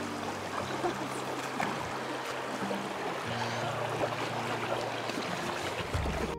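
Shallow creek water flowing in a steady rush over its bed, with low sustained background music notes underneath that shift pitch twice.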